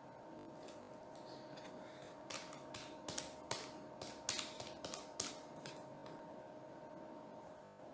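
A quick run of about a dozen faint, sharp clicks between about two and six seconds in, over a faint steady whine.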